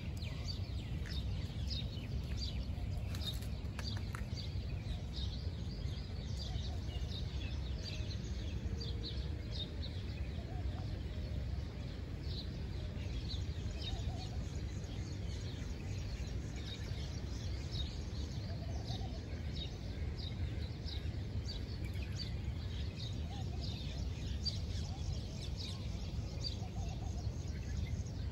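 Steady low wind noise on the microphone, with small birds chirping over it in short, high chirps a few times a second.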